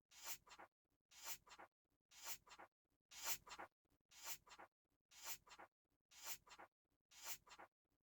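Quiet page-turning sound effect: a book's paper pages turned eight times, about once a second, each turn a brushing swish ending in a quick flick.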